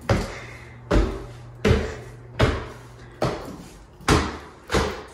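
Footsteps climbing a flight of indoor stairs: seven thuds at an even pace, about one every three-quarters of a second.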